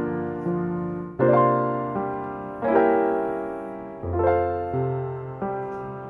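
Soft background piano music: chords struck about every second and a half, each ringing and fading before the next.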